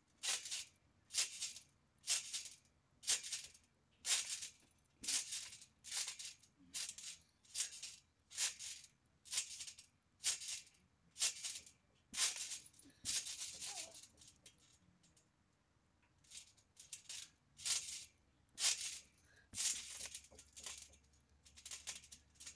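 Trampoline springs and mat giving a rattling swish with each bounce, about three bounces every two seconds, with a short pause about two-thirds of the way through.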